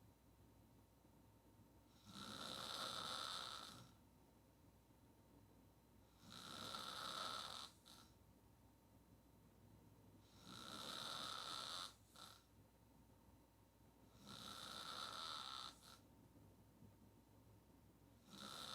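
A woman snoring hard on her back with her mouth wide open: one snore about every four seconds, each lasting about a second and a half, with quiet between. Four full snores, and a fifth starts near the end.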